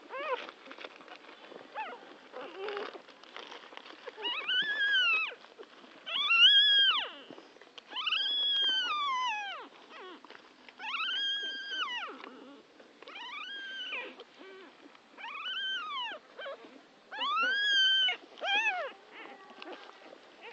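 Three-day-old newborn puppies crying: a series of about seven high, thin whines, each rising and then falling in pitch, coming roughly every two seconds from about four seconds in. Soft rustling comes before them.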